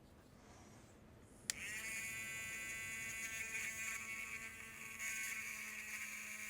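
Small handheld electric motor tool switched on with a click about one and a half seconds in, spinning up briefly and then running with a steady buzz.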